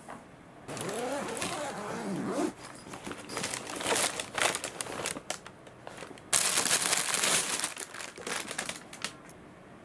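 A fabric carry bag's zipper is pulled open, then clear plastic packaging and folded vinyl crinkle and rustle as the contents are handled and lifted out. The loudest crinkling comes in the second half.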